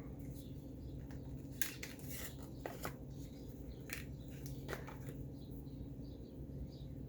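Light clicks and taps of lipstick tubes and packaging being handled, a few sharp ones spaced a second or so apart, over a steady low hum. Several faint short high chirps come in near the end.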